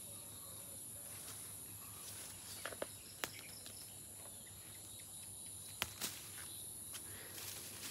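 Faint, steady high-pitched chirring of insects, with a few short clicks about a third of the way in and again near three-quarters, from a hand moving among the leafy vines.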